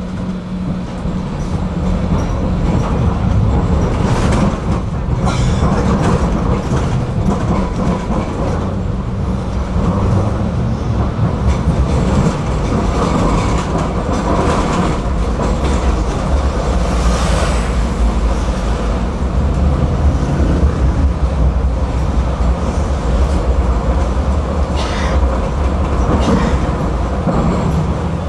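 Tram running along its track: a steady low rumble that grows louder over the first two seconds, with short clicks and clacks of the wheels over rail joints every few seconds.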